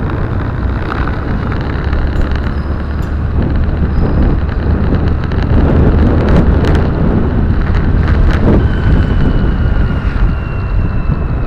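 Car driving on a town street, heard from inside the cabin: a steady low engine and road drone, with a few sharp clicks and rattles now and then and a faint thin whine near the end.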